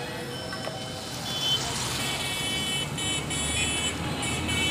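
Street traffic: a motor vehicle's engine rumbling as it comes closer. From about a second and a half in, a high electronic tone sounds in stretches with short breaks, like a vehicle alarm or warning beeper.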